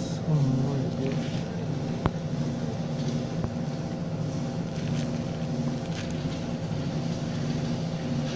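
A steady engine-like mechanical hum runs throughout, with a few sharp light clicks of the fan motor's metal parts being handled.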